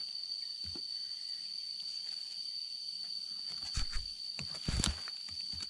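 An insect drones steadily at one high pitch. A few low thumps and rustles come through, most of them in the second half.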